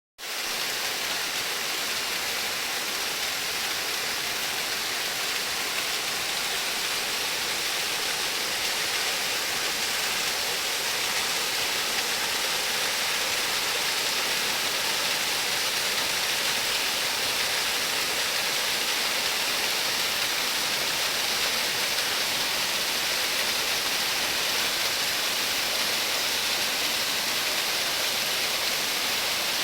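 Waterfall: a steady, unbroken rush of falling and splashing water, bright and hiss-like, with no change over the whole span.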